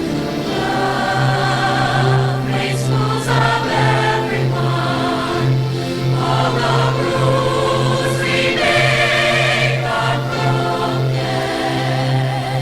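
Show choir singing held chords over instrumental accompaniment, with a steady low note underneath; no words can be made out.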